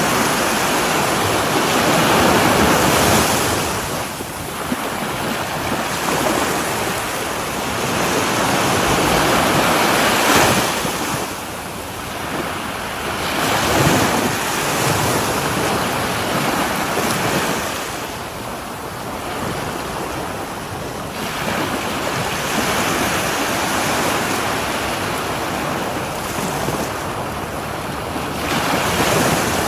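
Sea waves breaking on a shore, a continuous surf wash that swells and falls back every few seconds.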